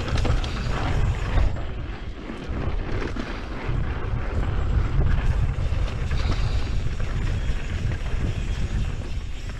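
Wind buffeting the action-camera microphone on a moving mountain bike, a heavy fluttering rumble, with the tyres running over dirt singletrack and small knocks and rattles from the bike over bumps.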